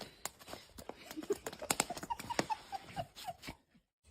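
Quick clicking and tapping of a dog's claws on a hard floor, with a run of short, high squeaks about a second in.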